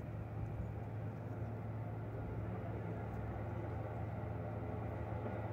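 A steady low motor hum, like an idling engine, running without change.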